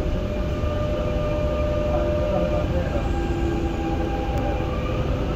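Dubai Metro train pulling out of a station and gathering speed, heard inside the carriage: a steady low rumble of wheels on the track, with the electric traction motors whining in several steady tones.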